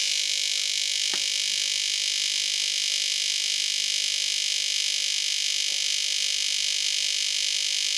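Wire-in-tube ozone generator tube running, giving a steady high-pitched hiss from its electrical discharge. A faint click comes about a second in.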